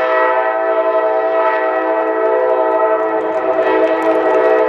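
A loud horn chord of several notes, held steady without a break, that cuts off suddenly.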